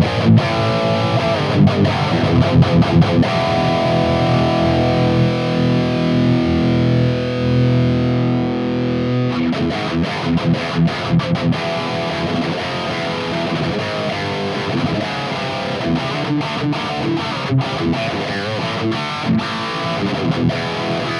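High-gain distorted electric guitar played through a Mooer Brown Sound preamp pedal on its 5150-style red channel with no boost, heard from a miked cabinet: fast muted chugging riffs with a chord held for several seconds in the middle. The bass control is turned down, which leaves the tone thin.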